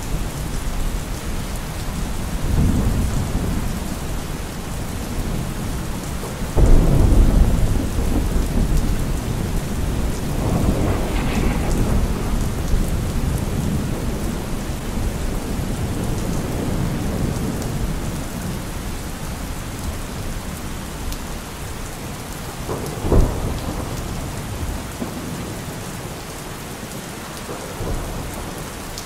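Thunderstorm: steady rain with thunder rumbling several times, the loudest rumble starting suddenly about a quarter of the way in and a shorter, sharper clap about three-quarters through.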